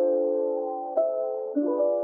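Soft background music of held chords, a new chord struck about a second in and another near the end.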